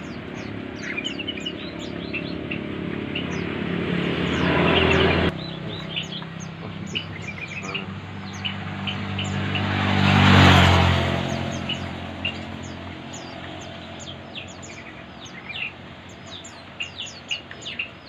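Small birds chirping busily, many short high chirps throughout. Motor vehicles pass on the road: one swells and cuts off suddenly about five seconds in, and another grows loudest about ten seconds in before fading.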